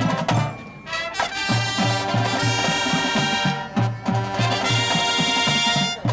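High school marching band playing its field show: brass with trumpets and trombones over a pulsing low bass line, with a brief dip about half a second in before the full band returns loud.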